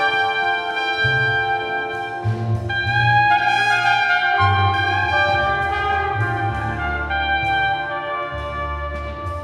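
Modern jazz quintet recording: a trumpet plays long held notes over plucked double bass notes and light cymbal strokes.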